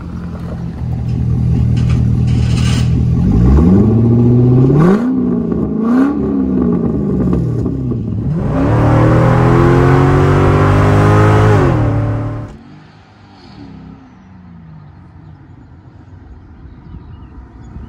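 Corvette C6 V8 with its mufflers deleted, idling, then revved: a rising rev, a short blip, and a longer held rev that is the loudest. The sound drops off suddenly a little past two-thirds of the way through, leaving only faint background.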